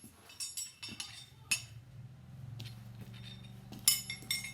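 Steel combination spanners clinking together as they are handled and laid side by side, a few sharp metallic clinks with a bright ring, the loudest cluster near the end. A faint steady low hum runs underneath from about halfway.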